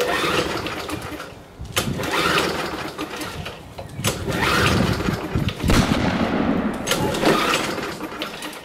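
Recoil pull-start of a Hayter Spirit 41 petrol lawnmower, yanked about five times in a row, a second or two per pull. The engine turns over on each pull but never fires: a complete no-start.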